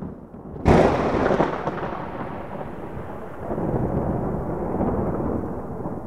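A thunderclap. A sharp crack comes about a second in, then a long rolling rumble that swells again midway and slowly fades.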